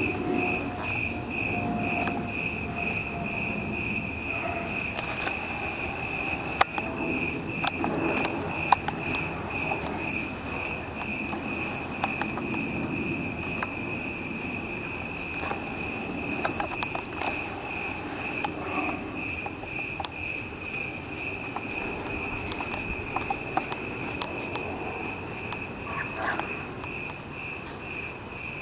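A cricket chirping in a steady, even rhythm, about two chirps a second, over a low rumble.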